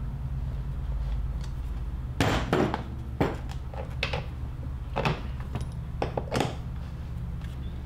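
Hand tools and 3D-printed nylon parts being handled: about half a dozen short knocks and clatters, the loudest about two seconds in, over a steady low hum.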